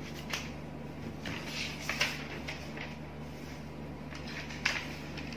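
Steady low background hum with a few soft clicks and rustles, the sharpest near the end.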